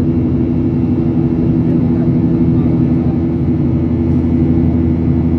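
Steady, loud engine drone with a constant low hum that does not change in pitch or level.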